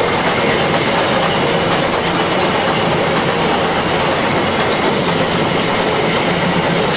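Steady, loud running noise on the footplate of steam locomotive 78022, a BR Standard Class 2 2-6-0, while the train is under way.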